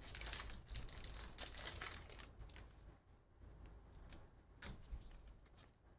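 Foil wrapper of a trading-card pack crinkling and tearing as it is ripped open, then fainter scattered ticks as the stack of cards is handled.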